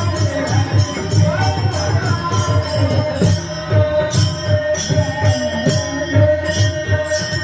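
Warkari bhajan music: rapid hand-drum strokes and small hand cymbals clashing in a fast rhythm over a held harmonium-like note, with a voice singing in the first couple of seconds.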